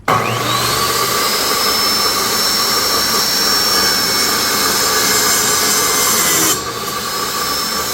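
Ryobi table saw switched on, its motor whine climbing to full speed within the first second, then running and ripping a piece of wood. The noise drops and changes about six and a half seconds in.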